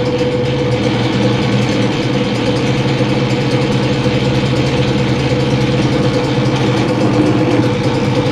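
Metal lathe running steadily under power feed on a threading pass, its motor and gear train giving a steady hum with a fixed tone, as the tool takes a light 5-thousandths undercut on the flattened tops of a repaired bolt's threads.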